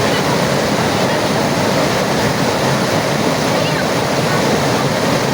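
Steady, loud rush of water.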